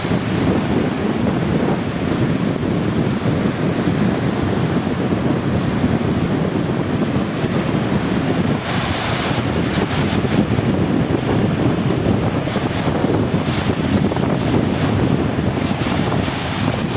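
Sea waves washing, with a steady rush of wind buffeting the microphone. A few brief hissing surges come about halfway through and again near the end.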